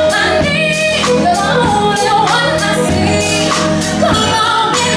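A woman sings with a live band: a drum kit keeps a steady beat under electric bass and keys.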